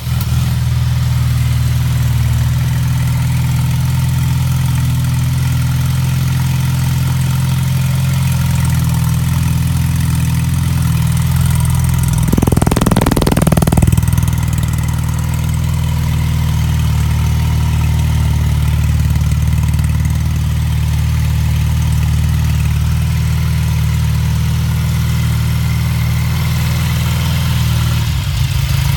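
Triumph 5TA's 500 cc parallel-twin engine idling steadily. About twelve seconds in, a brief louder rush of noise comes over it.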